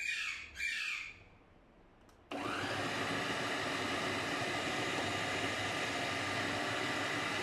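Two short plastic squeaks as the pusher is pressed into the feed tube, then about two seconds in the Anex AG-3150 food processor's motor starts suddenly and runs steadily with a high whine, its blade mincing raw chicken pieces into keema.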